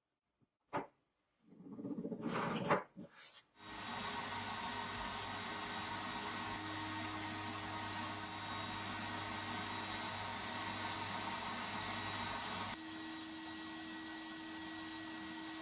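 An electric power tool motor running steadily with an even hum, dropping slightly in level and shifting tone near the end. A short click and a brief swelling rub come just before it starts.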